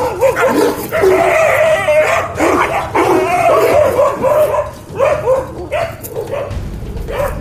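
A pack of stray dogs barking and yelping frantically, many voices overlapping with no break, as they confront and drive off a wild bear.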